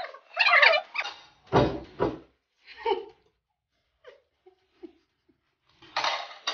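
Short, scattered vocal noises from people eating with full mouths: grunts, squeals and exclamations. There are two heavy thumps about a second and a half in, a few faint ticks, and a breathy burst near the end.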